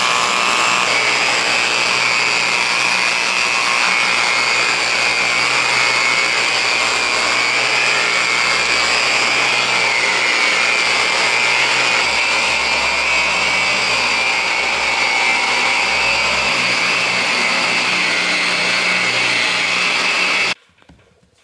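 Electric rotary buffer spinning a foam pad against a fiberglass boat hull, working wax into the gel coat: a steady high motor whine that stops abruptly near the end.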